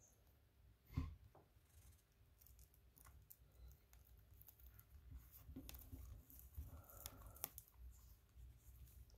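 Faint handling sounds of a lubricated latex condom being rolled down a banana by hand: soft rubbing and scattered small clicks, with one sharper knock about a second in.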